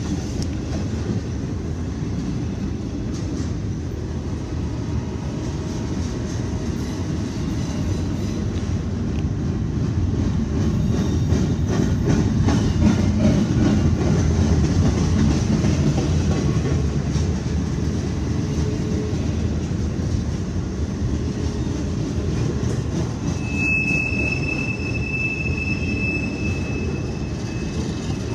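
Freight train cars rolling past: a steady low rumble that swells through the middle and eases off. Near the end a high, steady wheel squeal starts up and holds.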